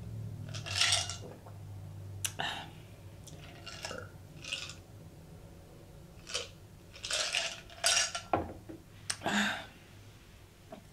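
A person gulping sparkling water from a glass: a run of loud swallows, roughly one a second, with a few sharp clicks of the glass.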